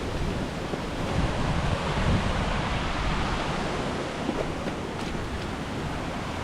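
Steady rush of a waterfall, its water cascading down through rocky steps, with wind buffeting the microphone.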